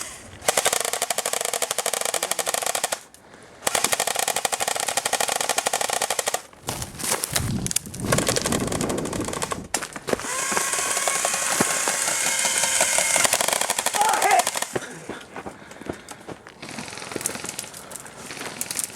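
Airsoft guns firing on full auto: long bursts of rapid clatter, each several seconds long with short breaks between, thinning to scattered, quieter shots near the end.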